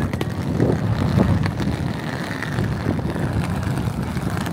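Outdoor street ambience made up mostly of a low, uneven rumble, with wind buffeting the microphone.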